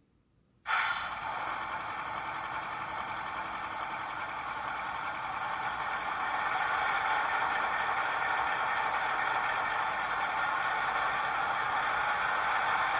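Digital sound decoder in a model DF11 diesel locomotive playing diesel engine sound through its small speaker. It cuts in suddenly under a second in, runs steadily, and grows a little louder about halfway.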